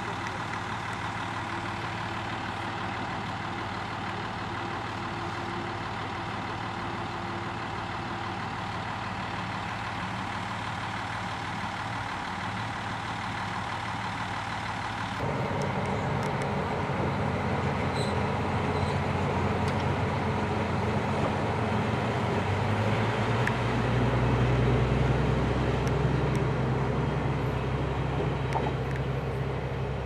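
KiHa 32 diesel railcar idling steadily. About halfway through, the sound cuts to another KiHa 32 diesel railcar running on the line. Its engine is louder, with a strong low rumble, and loudest about three-quarters of the way through.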